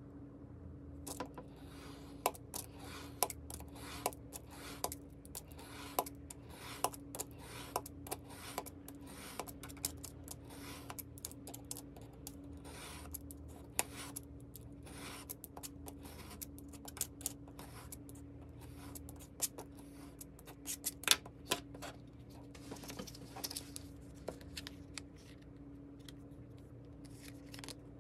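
Snap-off utility knife blade cutting through a stack of sticky-note paper along a steel ruler: a long run of short, scratchy cutting strokes and clicks, over a faint steady hum. Played back at double speed.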